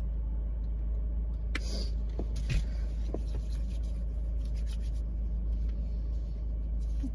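Steady low rumble inside a car cabin, with a few faint clicks and rubbing sounds as hand sanitizer is applied and rubbed into the hands.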